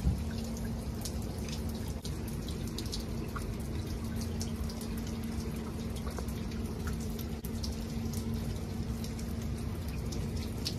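Water running steadily with small splashing ticks and a steady low hum.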